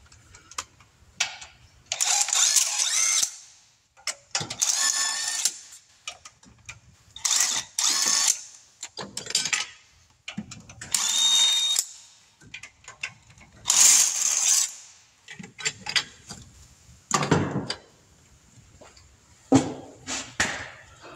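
Cordless power ratchet run in repeated short bursts of about a second each, with brief pauses between, driving bolts on an engine.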